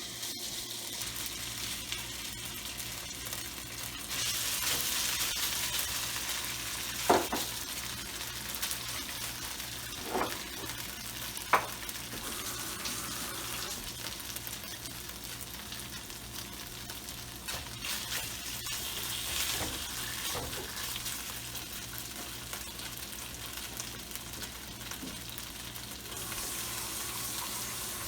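Marinated jumbo shrimp sizzling in hot oil in a wok as they are stirred, a steady hiss that swells for a few seconds. Three sharp clinks of a utensil against the wok come in the first half.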